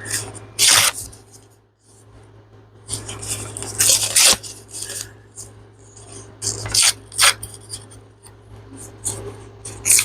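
Paper being torn by hand to size, in several short tears with handling of the sheets between them.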